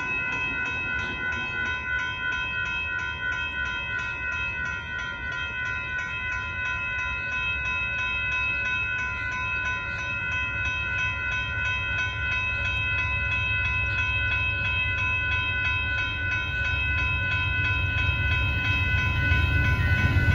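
Railroad crossing warning bells ringing steadily with a rapid, even beat. Under them, the low rumble of an approaching passenger train grows louder toward the end.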